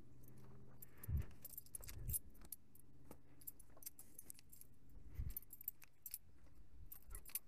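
Someone walking over a forest floor: a few soft footfall thumps, with many small clicks and light jingles from things carried as they walk, over a faint steady low hum.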